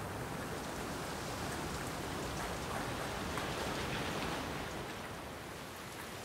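Steady, even hiss with faint scattered ticks, easing slightly near the end.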